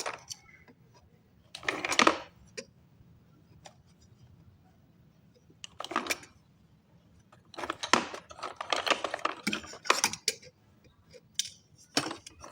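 Slate pencils being handled in their packaging: short bursts of hard clicking and clattering, with a longer, busier stretch of rattling in the middle.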